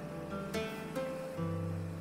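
Background music: an acoustic guitar playing sustained plucked notes.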